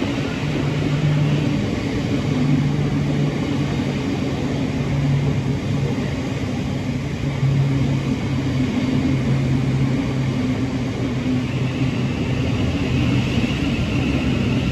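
Class 700 Thameslink electric multiple unit running through the station: a steady rumble with a low hum from its traction equipment that fades and returns every second or two.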